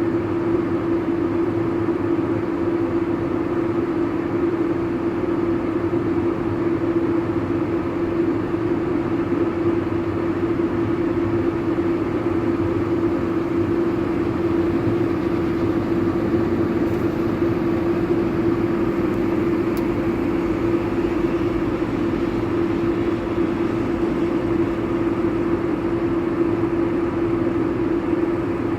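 Combine harvester running steadily, a constant machine noise with a strong, unchanging hum.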